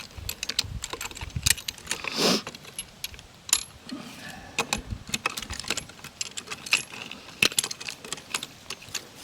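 Irregular metallic clinks and rattles of lug nuts and a lug wrench as a tractor wheel's nuts are fitted and tightened.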